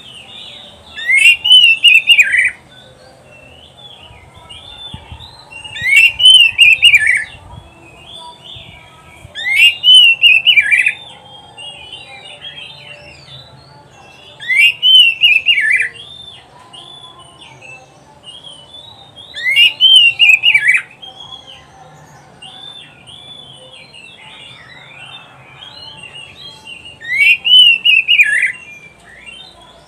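Oriental magpie-robin (kacer) singing: six loud, nearly identical phrases of quickly falling notes, one every four to five seconds, with softer chirps and twitters between them.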